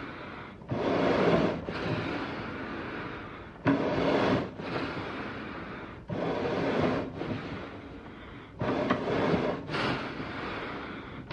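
Eerie animal breathing sound effect: breathy exhales and inhales in a steady series, each starting abruptly and tailing off, roughly one every second.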